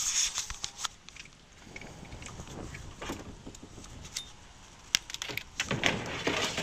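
Kayak and gear being handled and loaded: a burst of scraping and rustling, then scattered sharp knocks and clicks, with more clattering near the end.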